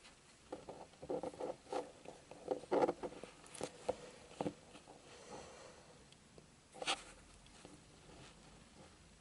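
Close handling noises of fingers working the small armature of a Hornby Dublo locomotive motor while testing it with a meter: a run of small scratchy clicks and rustles over the first few seconds, then one sharper click about seven seconds in.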